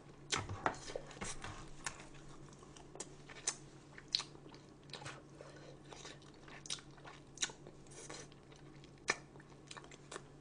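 Close-miked chewing and biting of food, with irregular soft crunches and wet mouth clicks.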